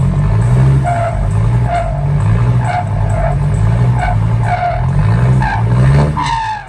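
Heavily loaded six-wheel dump truck's diesel engine revving in rhythmic pulses, a little more than once a second, as it tries to drive its rear wheels out of wet mud. Each pulse carries a short squealing chirp as the wheels spin without grip.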